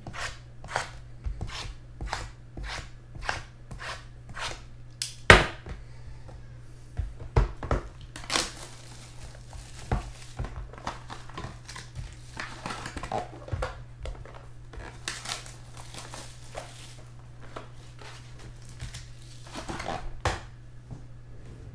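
A run of light, evenly spaced taps, about two and a half a second, then a sharp knock about five seconds in. After that, plastic shrink wrap is torn off a sports-card box and crumpled by hand, crinkling in irregular bursts.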